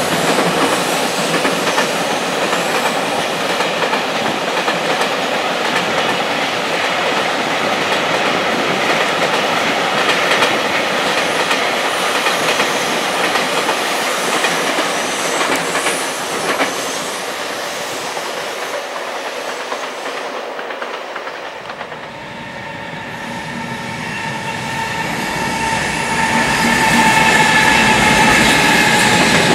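A freight train running past at speed, its wagons' wheels clattering over the rail joints. The sound fades away after about 18 seconds. Then another train approaches and grows loud near the end, with the steady whine of an electric locomotive's motors.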